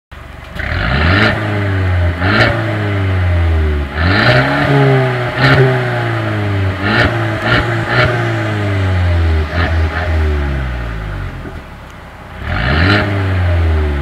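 The 2.0-litre turbocharged four-cylinder engine of a Mercedes-Benz CLA 250 being revved with the car standing still, about eight times. Each time the revs climb quickly and then fall slowly back, with a sharp crack from the exhaust at the top of several revs and a short lull before the last one.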